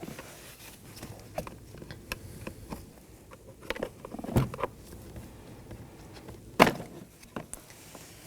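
Flat-blade screwdriver prying at a plastic interior door handle set in a door trim panel: scattered small clicks, taps and scrapes, with the sharpest snap about two-thirds of the way through as the handle's corner is worked loose.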